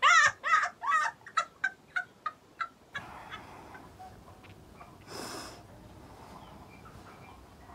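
A person's high, wavering crying voice trailing off into a run of short vocal bursts, about three a second, that fade away over the first three seconds. Then it goes quiet apart from a brief breathy rustle about five seconds in.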